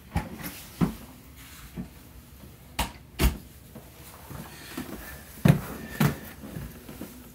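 Cardboard box being handled and set down on a wooden table: a series of knocks and thumps, the loudest about five and a half and six seconds in.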